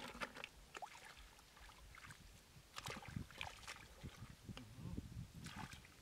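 Irregular small splashes and drips of shallow muddy water as snails are scooped up by hand and water runs off the fingers, in scattered clusters with quiet gaps between.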